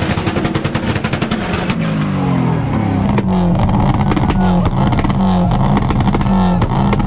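A performance car revved hard, its exhaust crackling with rapid pops for the first couple of seconds. Then comes a deep engine note that climbs and drops over and over with the revs.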